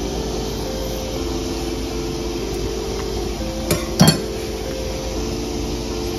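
Two sharp clinks of a metal spoon against china, a third of a second apart, over soft background music with sustained notes.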